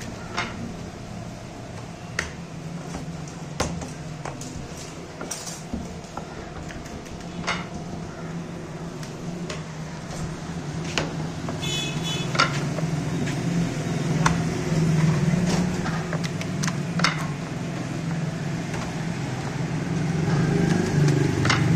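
A steady low hum with scattered sharp taps and knocks of a wooden rolling pin and hands working naan dough on a stone slab. The hum grows louder over the second half.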